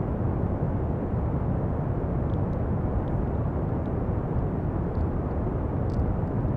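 Steady pink noise: an even, unbroken rush of hiss weighted toward the low end, with no change in level.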